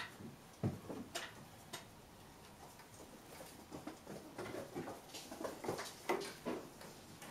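A kitten's claws scratching and paws knocking on bark-covered tree branches as it climbs: scattered light knocks at first, then a busier run of scrapes and knocks in the second half.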